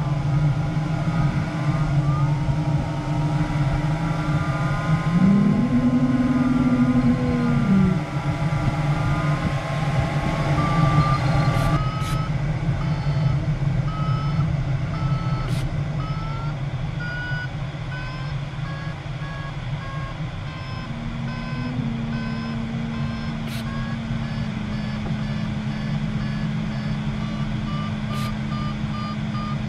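Glider's audio variometer: a wavering steady tone for the first ten seconds or so, then short repeated beeps that rise in pitch and drop lower near the end, beeping that signals the glider is climbing. Under it runs the steady hiss of air over the cockpit.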